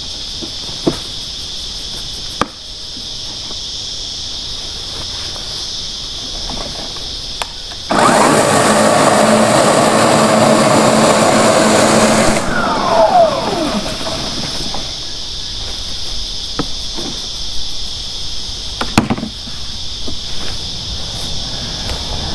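Ryobi scarifier with its dethatching cartridge started at a lowered, deeper setting: the motor and spinning tines run loudly through the grass for about four seconds, then it cuts out and the motor winds down in a falling whine. A steady high insect drone and a few clicks from the machine's height adjustment are heard around it.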